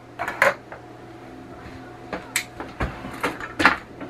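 A series of separate knocks and clatters: metal cans set down on a kitchen counter and a utensil drawer pulled open, its contents rattling. The loudest knock comes a little over three and a half seconds in.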